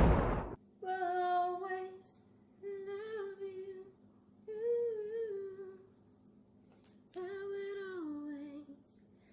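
A woman humming a tune in short phrases with held, gliding notes. A loud rushing noise dies away about half a second in.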